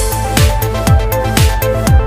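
Electronic dance music laid over the video, with a steady kick drum about twice a second under a held synth melody.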